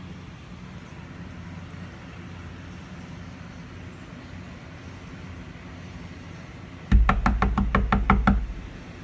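Steady low hum, then near the end a quick run of about ten loud knocks or taps, several a second, lasting about a second and a half.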